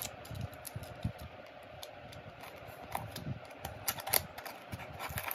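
A snap-off utility knife scraping and cutting at the packing tape on a cardboard parcel: irregular light clicks and scratches, with a few sharper clicks about three to four seconds in.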